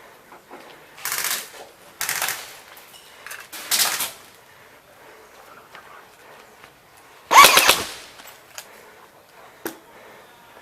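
Airsoft guns firing short automatic bursts: four bursts of about half a second, the loudest a little past the middle, then a single sharp crack near the end.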